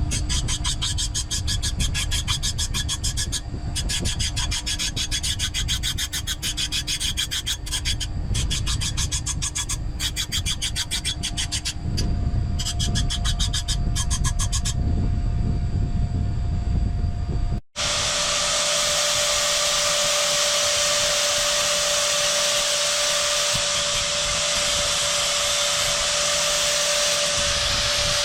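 A hand file rasps on a forged iron knife blade in quick, repeated strokes. After a sudden cut about two-thirds of the way in, an electric power tool runs steadily with a constant whine.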